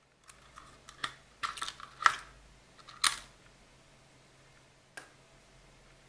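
Sharp plastic clicks and scrapes as the battery is pried out of an X-Sense smoke alarm's battery compartment: a cluster of clicks in the first three seconds, the loudest about two seconds in, then one more click about five seconds in.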